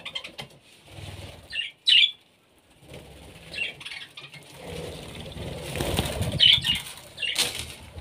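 Budgerigars fluttering and flapping their wings around a cage and onto a hand, with a few short, high chirps now and then.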